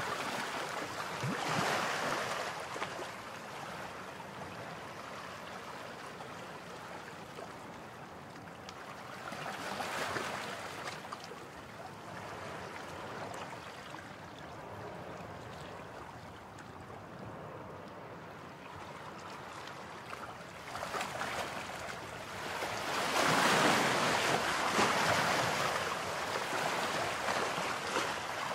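Sea surf washing on a sandy beach, swelling and fading in several slow surges, the longest and loudest near the end.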